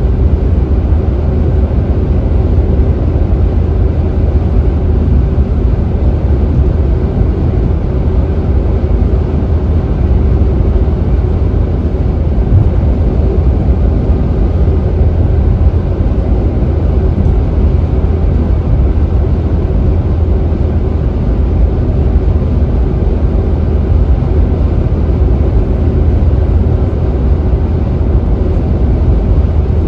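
Steady low rumble of a car travelling at freeway speed: tyre and road noise with engine and wind noise, even throughout.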